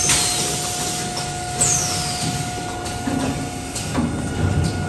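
Automatic panettone cup forming machine running: a steady whine and low rumble, with sharp hisses that fall in pitch at the start and again under two seconds in, and a couple of knocks near the end.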